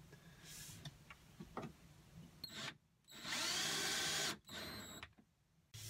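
Cordless drill driving a screw into a small scrap-wood brace: one steady motor whine lasting a little over a second, then a brief second pulse to seat the screw. A few light handling clicks come before it.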